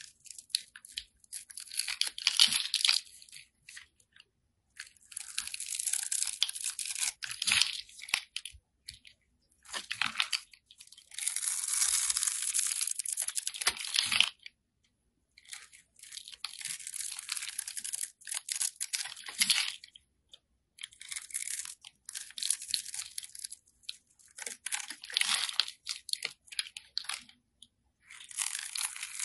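A snap-off utility knife blade scraping across a crosshatch-scored bar of soap, breaking off small cubes with a dry, crackly crunch. It comes in strokes of one to three seconds, about eight of them, separated by short pauses.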